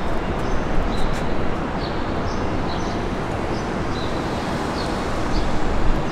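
Outdoor ambience: a steady rushing noise with small birds chirping high and briefly now and then.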